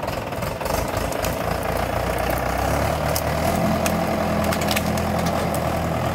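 Diesel tractor engine running under load as it pulls a trailer loaded with logs. It chugs unevenly for the first two seconds, then settles into a steady note, with a few sharp clicks over it.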